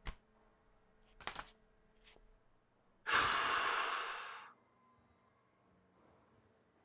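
A man's long, heavy exasperated sigh, about a second and a half, a few seconds in. Before it come a faint click and a couple of brief rustles.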